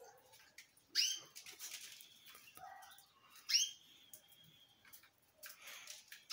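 Gouldian finch calling: short calls that drop sharply in pitch, about a second in, midway, and at the very end, the middle one held as a thin whistle for about a second. Faint clicks sound between the calls.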